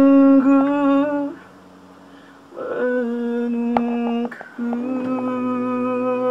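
A man's voice holding long wordless notes, each at a steady pitch, in three phrases: the first stops a little over a second in, a second note starts after a short break, and a third comes in after another brief break and is held on. There is a faint low accompaniment underneath.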